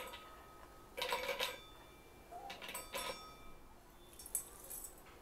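Almonds, pumpkin seeds and sunflower seeds pushed off a plate with a spatula, dropping into a stainless steel grinder jar and clinking against the metal in about four short bursts, each leaving a brief metallic ring.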